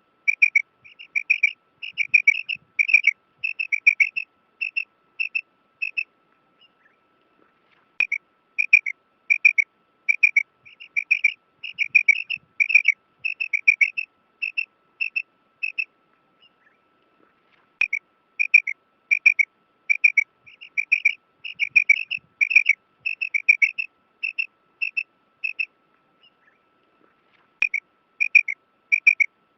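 Female quail calling: a quick series of short, high chirping notes, several a second, in runs of several seconds broken by short pauses.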